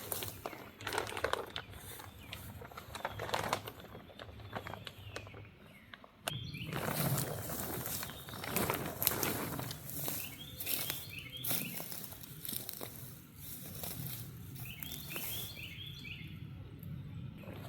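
Footsteps crunching and rustling through forest leaf litter, with a bird chirping in quick repeated runs twice in the second half.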